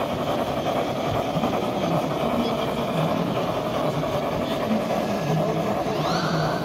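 Steady running noise of a G-scale model geared logging steam locomotive moving slowly along its track, with a whine that rises in pitch about six seconds in.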